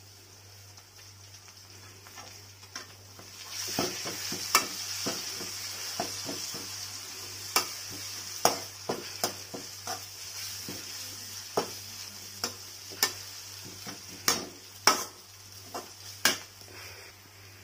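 Onions and spice masala frying in oil in an aluminium kadai, sizzling, which grows louder about three and a half seconds in. A steel slotted spoon stirs the masala, clinking and scraping against the pan in irregular sharp clicks.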